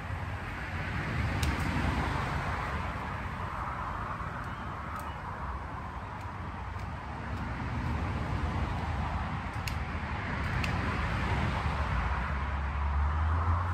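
Leafy vines and weeds rustling as they are pulled by hand off a chain-link fence, with a few sharp snaps of stems or twigs, over a low background rumble.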